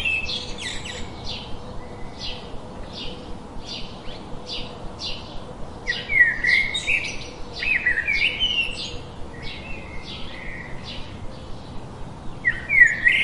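Songbirds chirping: a short high chirp repeats about twice a second, and louder warbling phrases break in now and then, most thickly about halfway through and again near the end.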